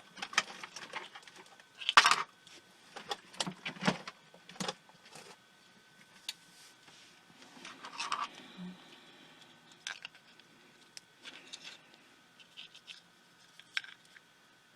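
Scattered light clicks, taps and scrapes of small parts and tools being handled while taking apart a tiny pico projector. The loudest tap comes about two seconds in.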